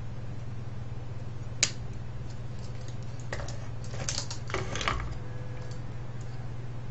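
Small plastic and metal parts of a cassette recorder's tape mechanism clicking and rattling as they are handled and taken apart: one sharp click about a second and a half in, then a quick cluster of clicks and rattles around four to five seconds in, over a steady low hum.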